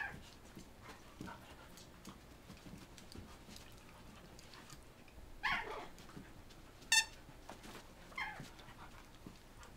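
Dogs play-wrestling, giving a few short, high-pitched whines and one sharp yip about seven seconds in, with faint scuffling between them.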